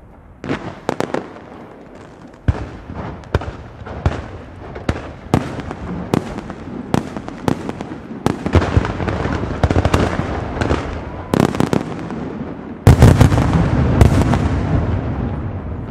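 Castillo aerial fireworks shells bursting with sharp bangs, at first about one every half second to second and growing denser. About 13 seconds in comes a sudden, loud, dense barrage of bursts that slowly fades.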